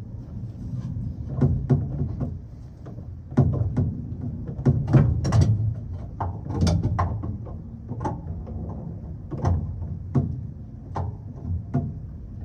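Irregular clanks and knocks as a spare tire hoist is worked into place under a 2003 Chevrolet Silverado, about twenty sharp strikes at uneven spacing over a low rumble.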